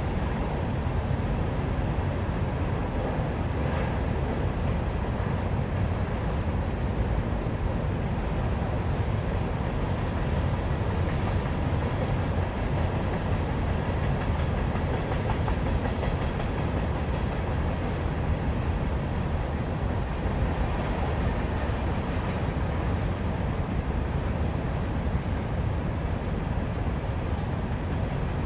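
Empty CSX coal train's hopper cars rolling past, a steady heavy rumble with repeated clicks of the wheels over the rail. There is a faint, brief high wheel squeal a few seconds in.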